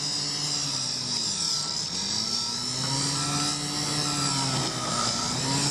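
Heavy machinery running during the cutting of a buried pipe, its engine pitch rising and falling in slow swells every second or two under a steady high whine.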